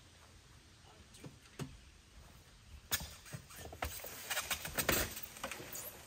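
Wheelbarrow being lifted and tipped into a wooden pallet compost bin, a couple of light knocks first, then from about three seconds in a rustling, clattering run as its load of used brooder wood shavings slides out, lasting about two and a half seconds.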